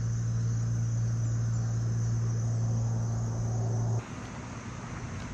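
A steady low hum that cuts off abruptly about four seconds in, over a continuous high-pitched insect drone.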